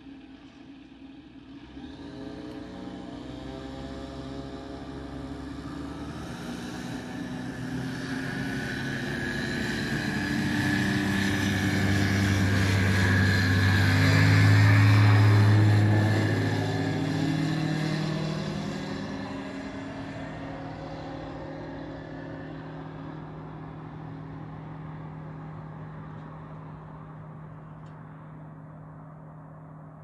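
Ikarus C42 microlight's engine and propeller at full take-off power. The drone comes up about two seconds in, grows louder as the aircraft rolls past, and drops in pitch at its loudest point halfway through, then fades as it climbs away.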